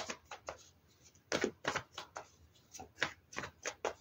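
Tarot cards being shuffled by hand: a run of short, irregular card snaps and riffles, with a brief pause about a second in.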